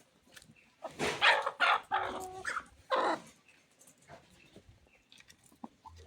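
Four loud, harsh animal calls in quick succession between about one and three seconds in, followed by faint scattered sounds.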